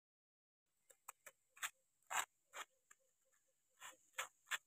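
Faint short scraping strokes on notebook paper as white powder is pressed and spread across it by hand, irregular, starting about a second in.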